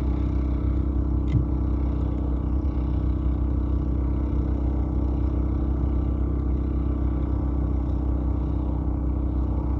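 A steady low hum like an engine running, with one sharp clack about a second and a half in.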